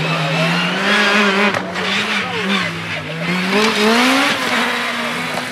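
Opel Adam rally car's four-cylinder engine revving hard through a gravel corner, the revs rising and dropping several times with gear changes and climbing to a peak about four seconds in before falling away, over the hiss of tyres on loose gravel.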